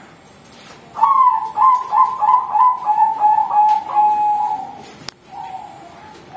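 A young Bangkok-type zebra dove (perkutut) cooing. A run of quick stuttering notes starts about a second in and ends on a longer held note; a sharp click follows, then a shorter coo near the end.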